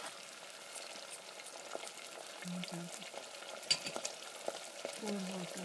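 Chopped vegetables with ginger-garlic, chili and soy sauces sizzling in hot oil while a spoon stirs them thoroughly, with scattered light clicks of the spoon against the pan.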